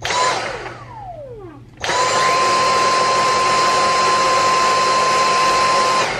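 Cordless stick vacuum switched on and released almost at once, its motor whining down in a falling pitch. About two seconds in it is switched on again and runs steadily with a high whine and rushing air, then cuts off near the end.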